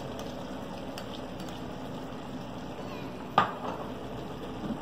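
Pot of pelau simmering with a steady low hiss. About three and a half seconds in, a single sharp clink of kitchenware against the pot rings briefly.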